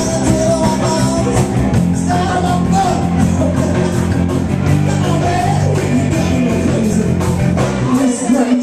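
Live blues-based rock band playing: a man sings lead into a handheld microphone over electric guitar, bass and drums. The bass and drums drop out for a moment near the end.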